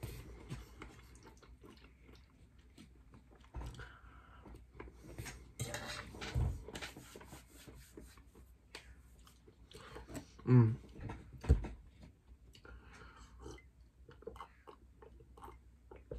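Close-miked chewing and wet mouth sounds of someone eating pasta with meat sauce, with many small clicks. About ten seconds in come two loud throaty gulps, typical of swallowing a drink.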